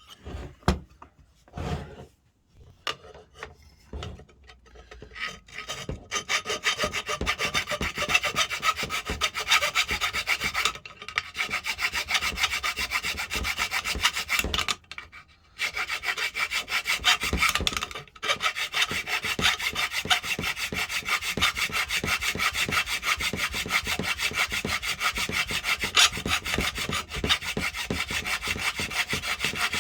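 A hand file rasping away a metal tab inside the plastic dust extraction port of a DeWalt biscuit jointer, in fast, steady strokes with a few short pauses. A few separate knocks come first, as the tool is set up.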